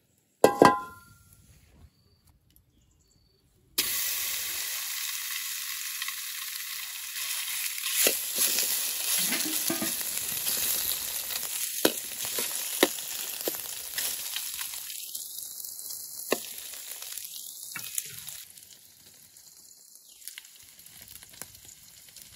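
A sharp metallic clank with a short ring. About four seconds in, a loud frying sizzle in a pan starts suddenly, with scattered pops and clicks. Near the end it eases to a quieter sizzle.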